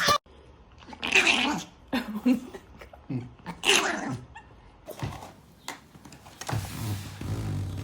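A pet dog vocalizing in a string of short pitched sounds, with a longer one near the end.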